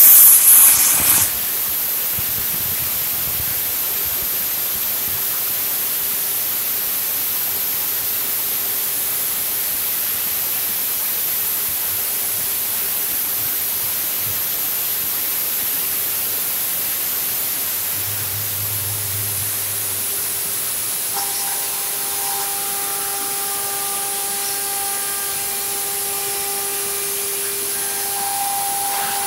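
Spindle of a 1325 CNC wood router running steadily as the bit engraves letters into a fibreboard panel: an even hiss with a constant high whine and a steady hum. A louder burst of noise comes in the first second, and a second steady tone joins about two-thirds of the way through.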